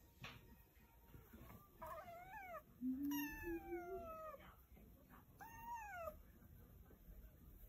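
Black kitten meowing about four times, small calls that fall in pitch at the end. The longest and loudest comes about three seconds in.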